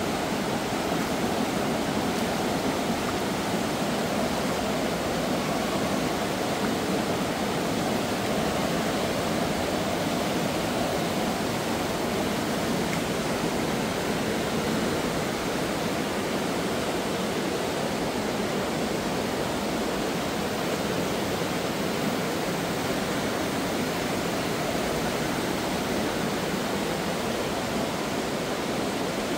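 Steady rush of the Alcantara River's flowing water in the gorge, an even, unbroken noise.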